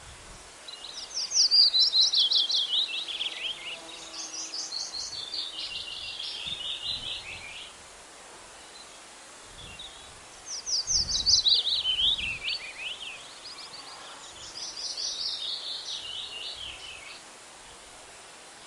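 A songbird singing two long songs, each a fast run of repeated chirping notes that falls in pitch and trails off more quietly, with a pause between songs. Under it is a steady faint outdoor hiss.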